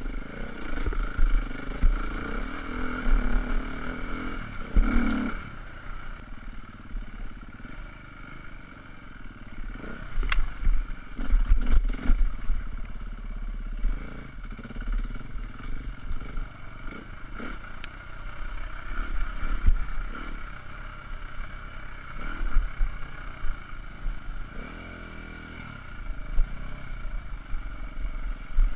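Husqvarna enduro dirt bike's engine running and revving up and down on a steep, rough trail, with heavy low rumble at the close-mounted camera. A couple of sharp knocks come about ten and twelve seconds in.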